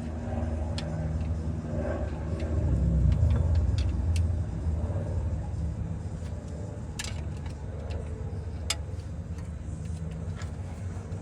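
A steady low engine-like rumble with a faint hum, broken by a few sharp light clicks, two of them stronger, about two thirds of the way through.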